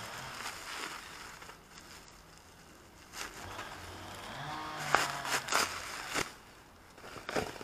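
Bubble wrap crinkling and crackling as it is pulled off a motorcycle side stand, with louder bursts of crackling about five seconds in and again near the end.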